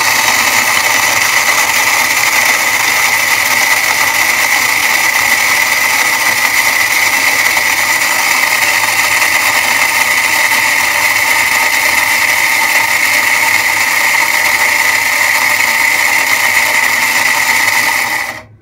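Deuron electric mixer grinder running at full speed with its small dry-grinding jar, pulverising dried beetroot pieces into powder: a loud, steady whir with a high whine, which cuts off near the end.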